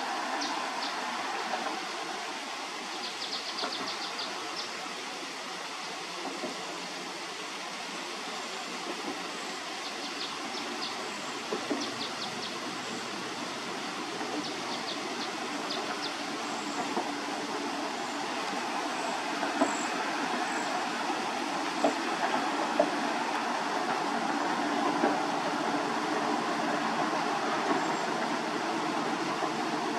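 Freight train rolling past with a steady rush of wheels on rail. Groups of short, sharp, high clicks come in the first half, and a few louder knocks come in the second.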